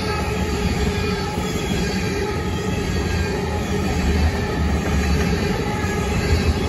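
Railroad cars rolling past on steel rails, a steady loud rumble with some squealing from the wheels.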